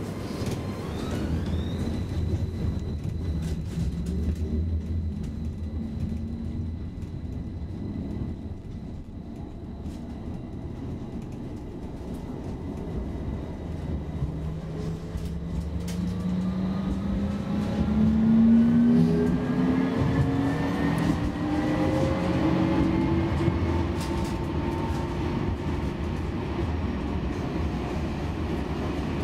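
Stockholm A32 tram heard from inside the car, running on its rails with a steady low rumble. From about halfway a whine from the drive rises steadily in pitch over several seconds as the tram speeds up, loudest about two-thirds in.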